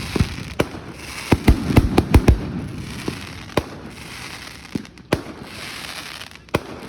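Fireworks going off: a quick cluster of loud bangs about a second and a half in, then single bangs every second or so, with crackling in between.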